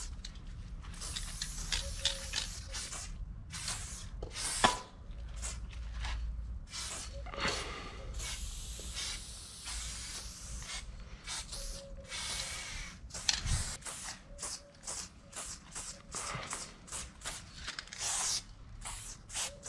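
Aerosol spray paint cans hissing in many short bursts and a few longer passes as outline lines are sprayed. There is a sharp click about four and a half seconds in.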